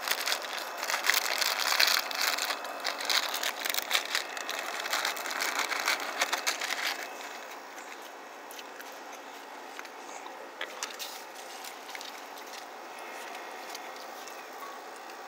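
Raccoon kits eating Ritz crackers and moving about on a plastic tarp up close: dense crunching and crackling for about seven seconds, then quieter with only occasional clicks.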